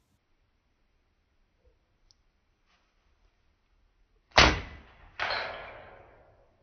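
An air rifle fires once with a sharp crack, followed under a second later by a second loud bang that fades away over about a second. A couple of faint clicks come before the shot.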